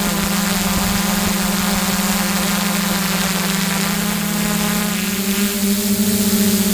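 Six-rotor hexacopter on DJI E310 motors and propellers, heard from on board, humming steadily with an airy rush of propwash and wind. The pitch rises a little near the end as the motors speed up.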